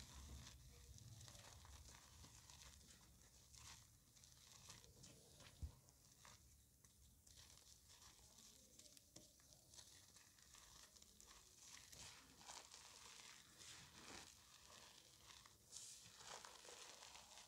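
Faint, soft crunching and crumbling of gym chalk blocks and powder being crushed and squeezed by hand, in scattered small crackles, with a single sharp tap about six seconds in.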